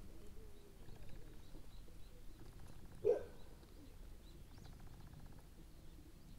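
Capybara grazing, with faint crunching as it tears and chews grass, and faint bird chirps. One short, louder sound stands out about three seconds in.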